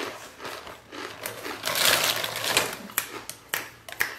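Crunchy Cheddies cheddar crackers being chewed: a run of irregular, crisp crunches, thickest about two seconds in, with single sharp cracks after.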